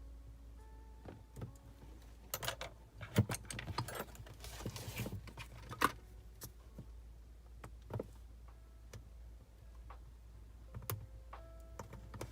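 Scattered sharp clicks and taps with a short scrape from small metal tools working on a smartphone's parts, over faint steady notes.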